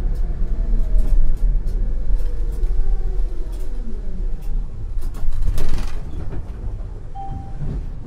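ČKD Tatra T6A5 tram running over the rails, heard from the driver's cab: a steady deep rumble with scattered clicks, and a traction-motor whine falling in pitch over the first few seconds as the tram slows. A short burst of hiss comes a little past the middle, and a brief beep near the end.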